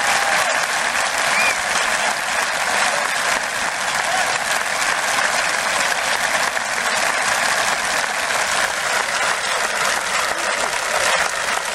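Large stadium crowd applauding, dense steady clapping from a packed stand of football fans.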